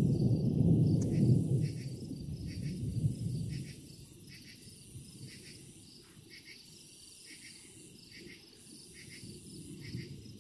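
Distant thunder rumbling low and fading out about four seconds in, with crickets chirping in quick repeated pulses throughout.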